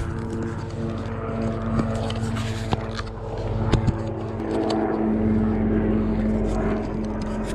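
A steady engine drone holding one even pitch, with scattered light clicks over it.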